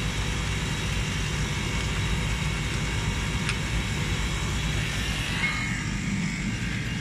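Refrigeration condensing unit with a Bitzer compressor running: a steady mechanical drone.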